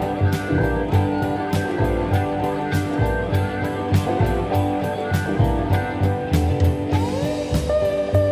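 Background music: guitar-led instrumental with a steady drum beat, and a sliding guitar note near the end.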